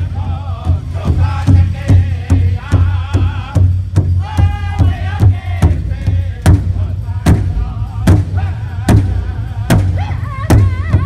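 A powwow drum group sings in high, wavering voices over a large hand drum struck in unison. The beat runs quick at first, drops out briefly about four seconds in, then returns at a slower, steady pace.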